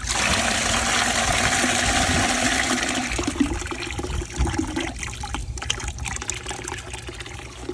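Vinegar-and-water flushing solution gushing out of an opened 3/4-inch PVC air conditioner condensate drain line into a bucket. It starts suddenly at full flow, then eases off after about three seconds to a lighter, uneven stream as the line drains down.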